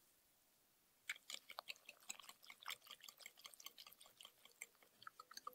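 Wire whisk mixing corn flour into a wet egg-and-milk batter in a glass bowl: a fast, irregular run of clicks and taps from the wires against the glass, with soft wet sounds between, starting about a second in.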